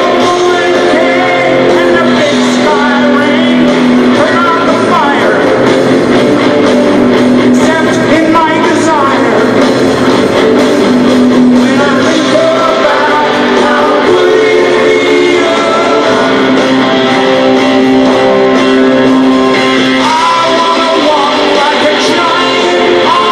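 Rock band playing live and loud: electric guitars hold long notes with several sliding bends, and there is singing over it. It echoes through an arena, heard from among the audience.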